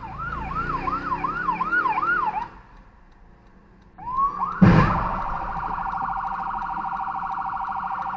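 Fire department rescue ambulance siren: a yelp sweeping up and down about twice a second, which stops, then starts again with a rising wail. About four and a half seconds in, a loud crash as a red SUV hits the ambulance's side, and the siren then runs on as a fast warble.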